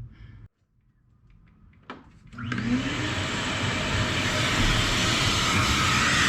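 Vacuum cleaner switched on about two seconds in: a click, then the motor spins up with a brief rising whine and runs on as a steady rushing drone.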